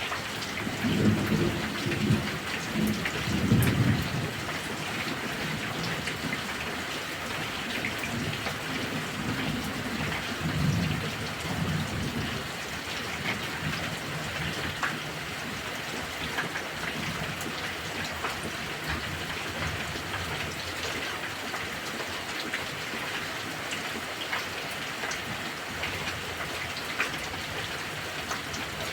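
Heavy rain falling steadily in a thunderstorm. Thunder rumbles loudly through the first few seconds and again more softly about ten seconds in.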